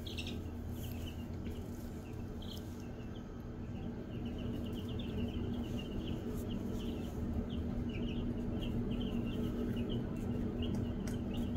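A brood of Easter Egger chicks peeping: many short, high cheeps overlapping, busier and a little louder from about four seconds in, over a steady low hum.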